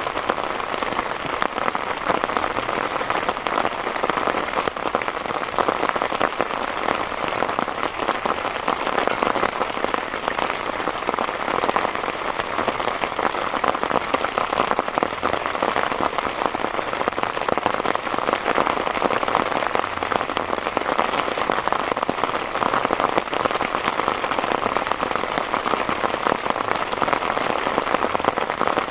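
Heavy rain falling steadily, a dense, even patter of countless drops striking a surface.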